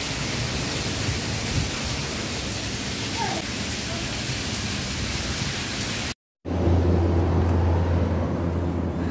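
Heavy rain pouring down, with runoff from a roof edge splashing onto wet concrete: a steady hiss. It cuts off abruptly about six seconds in, and a steady low hum follows.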